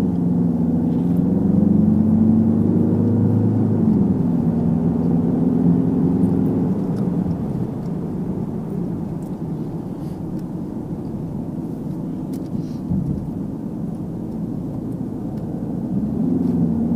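Restyled Peugeot 508 driving, heard from inside the cabin: the engine note climbs and dips in the first seven seconds, then settles into a steady low road and tyre rumble.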